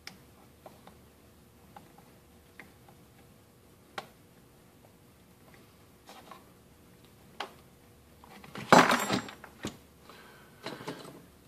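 Small plastic and metal parts being handled: pliers, a wire connector and a removed switch give scattered light clicks, then a louder clatter and rustle of parts being moved about nine seconds in.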